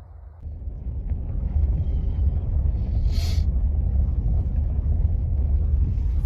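A deep, steady rumble, with a brief hiss about three seconds in.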